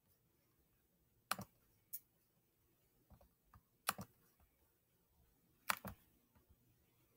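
Sharp clicking from a computer's pointing device: four short clusters of one to three clicks, spaced one and a half to two seconds apart, with a few fainter ticks between.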